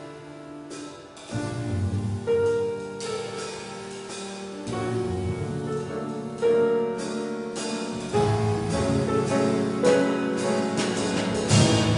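Live jazz piano trio playing: grand piano chords and melody over upright double bass and drum kit. The playing starts softly and grows louder and busier over the last few seconds.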